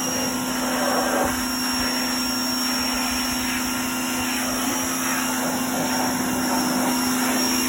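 Ryobi pressure washer running steadily, its motor humming at one constant pitch under the hiss of the spray.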